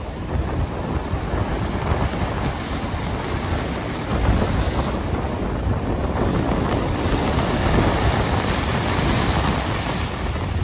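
Wind buffeting the microphone: a steady, loud rumbling noise.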